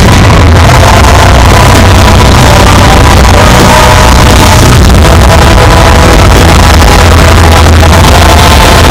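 Loud electronic show music with heavy bass and held synth notes, the recording overloaded and distorted, mixed with the bursting of a fireworks finale.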